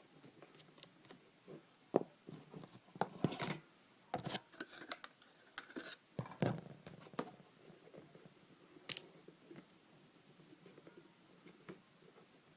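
Scattered light clicks, taps and short scrapes from handling the disassembled plastic parts of a TV remote, with a sharper tap about two seconds in and another around six seconds.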